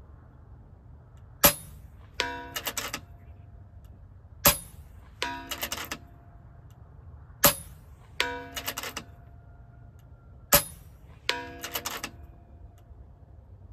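FX Impact M3 PCP air rifle firing four shots about three seconds apart. About a second after each sharp shot comes a short run of ringing metallic clicks as the side-lever action is cycled to chamber the next pellet.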